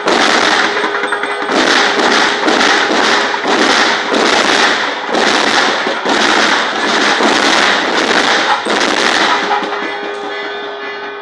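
Kerala chenda melam percussion ensemble playing loud, with ilathalam cymbals crashing on an even beat about one and a half times a second. A held pipe tone comes back through the crashes near the end.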